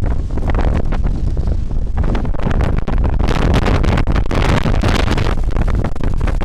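Strong hurricane wind blasting across the microphone, a heavy low rumble that gusts up and down with no letup.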